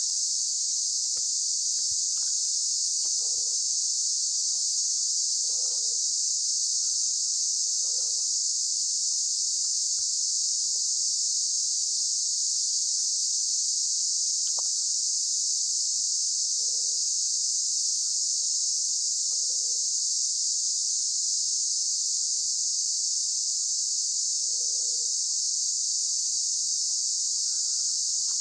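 A steady, high-pitched chorus of insects. Under it are soft footsteps on the leaf-covered dirt trail every few seconds.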